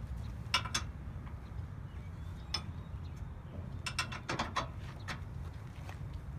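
Scattered short metal clicks and clanks, a few single ones and a quick run of them about four seconds in, as a bench vise's mounting post and pin are fitted into a truck's receiver hitch. A steady low rumble sits underneath.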